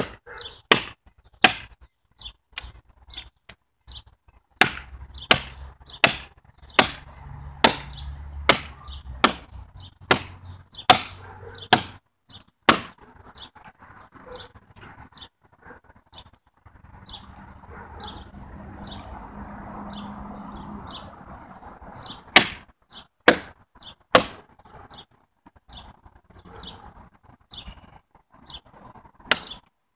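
Wood being chopped: sharp, loud chopping strikes about 0.8 s apart, in a long run through the first half, then a pause of several seconds, then three more strikes.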